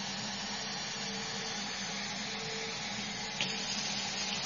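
Kitchen tap running steadily, filling a glass measuring cup with warm water, with a single light click about three and a half seconds in.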